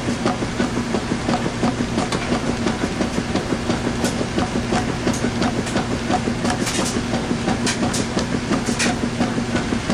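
Washing machine running with a load of towels: a steady motor hum under a quick, even rhythmic thumping of about four beats a second, with scattered light clicks and splashes.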